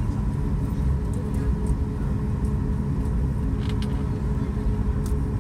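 Cabin noise inside a Boeing 737 MAX 8 taxiing: its CFM LEAP-1B engines at low thrust give a steady low rumble with two faint steady hum tones over it. A couple of faint clicks sound in the second half.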